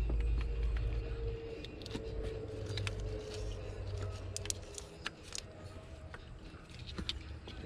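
Rubber hoses and plastic fittings being handled and pulled in a car's engine bay: scattered light clicks and rubbing. Underneath is a low rumble, strongest in the first second or so, and a faint wavering hum through the first half.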